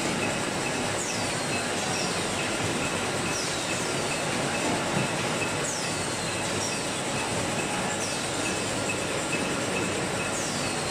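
Rotary hot-glue labeling machine and bottle conveyor running at production speed: a steady mechanical din with repeated short high squeals that fall in pitch every second or two.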